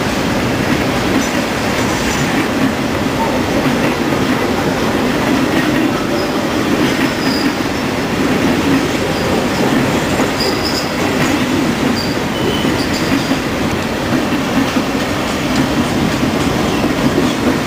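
Freight train's wagons rolling past steadily: a continuous rumble and clatter of steel wheels on the rails, with a few short, high wheel squeals in the middle stretch.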